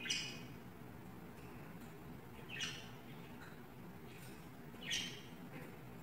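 Budgerigars giving three short chirping calls, a couple of seconds apart, over a faint steady room hum.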